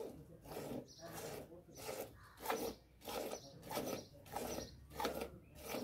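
Hand milking a cow into a steel bucket: squirts of milk hiss into the frothy milk already in the pail, at a steady rhythm of about two squirts a second.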